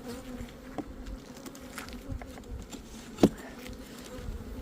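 Honey bees buzzing steadily around an open hive, a continuous hum at one pitch. A single sharp knock sounds about three seconds in.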